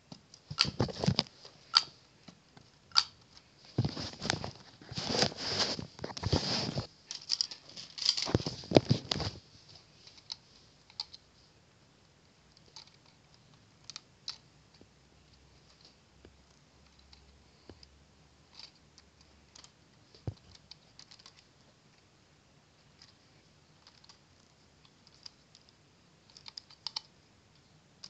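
Plastic Lego Technic parts clicking and rattling as the model is handled and its parts moved by hand: a dense run of clicks and rustles for the first ten seconds or so, then scattered single clicks.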